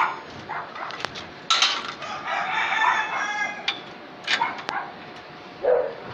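A rooster crowing once, a long call of about two seconds starting a second and a half in, with a few sharp clicks before and after it.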